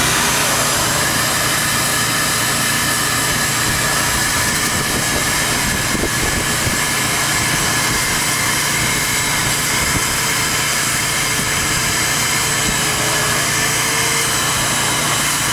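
Wet/dry shop vacuum running, sucking water and fine gold concentrate off the bottom of a gold dredge's sluice box; it starts abruptly and then holds a steady rushing whine.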